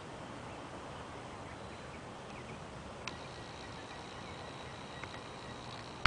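Quiet outdoor ambience: a steady hiss with a thin, high steady tone, and a single sharp click about three seconds in.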